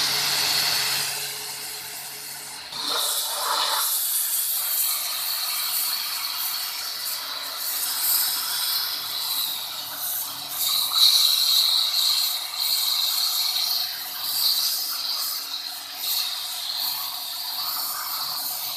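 Bosch 140-bar pressure washer running at its maximum pressure setting: a steady pump hum under the hiss of the water jet striking a stone trough and stripping moss from it. The spray dips briefly about two seconds in, then runs louder again.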